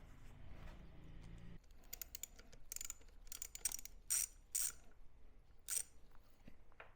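A socket ratchet clicking in short, irregular strokes while the thermostat housing bolts are run in. A low steady hum stops about a second and a half in, then sharp metallic clicks follow, loudest around the middle.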